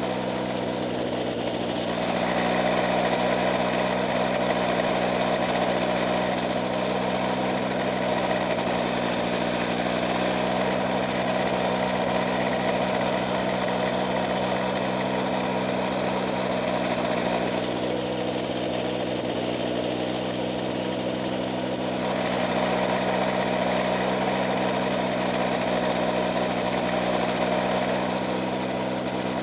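Camera drone's motors and propellers humming steadily in flight: several constant tones under a hiss that softens briefly a few times.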